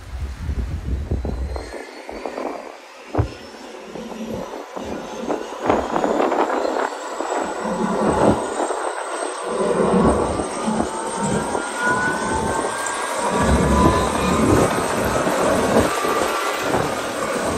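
Bell 412 helicopter's twin turboshaft engines running up on the ground: a high turbine whine climbs steadily in pitch, with more rising tones joining about ten seconds in as the rotor builds speed and the sound grows louder. Wind buffets the microphone in gusts.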